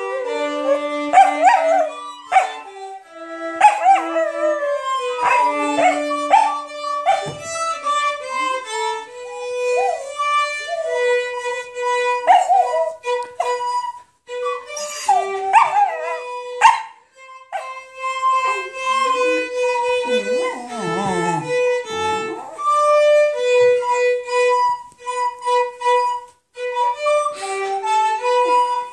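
Shetland sheepdog howling and yipping along with violin music, in several wavering bursts over the violin's steady held notes.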